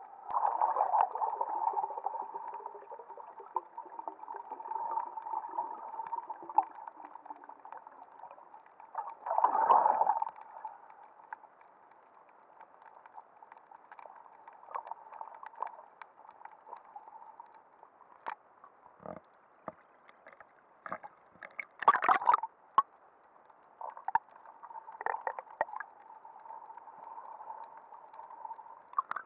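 Muffled underwater water noise picked up by an action camera in its waterproof housing: a steady dull gurgling, with several louder bursts of bubbling and swishing, the strongest about a second in, near the middle, and about two thirds of the way through.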